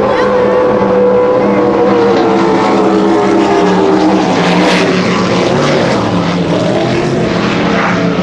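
Loud drone of racing engines, their pitch sliding slowly down over the first few seconds and rising again near the end.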